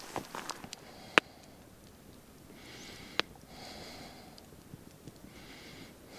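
Small wood campfire crackling, with a sharp pop about a second in and another about three seconds in, and soft hissing in between.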